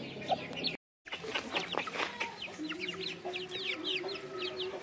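Young gamefowl chickens peeping, many short high chirps falling in pitch, several a second, with some clucking. The sound breaks off for a moment about a second in.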